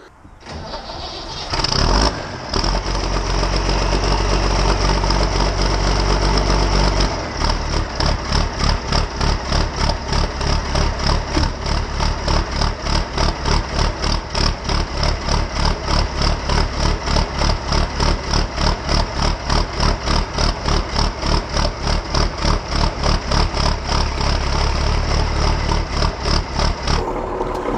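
Ford TW-25 tractor's six-cylinder turbo diesel engine cranking and catching about two seconds in, then idling. About seven seconds in, the idle settles into an even, pulsing beat.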